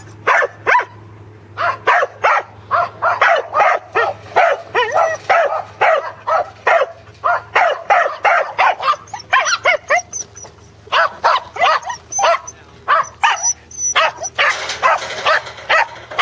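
Pembroke Welsh Corgi barking while herding sheep: a rapid string of short, sharp barks and yips, about two to three a second, with a short pause about ten seconds in.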